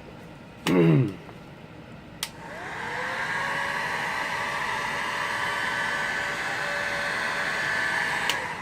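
A handheld hot-air blower switches on with a click a couple of seconds in, its motor whining up to speed, then runs steadily for about six seconds before cutting off near the end. It is heating the phone's screen to soften the adhesive. About a second in there is a brief, low voice sound.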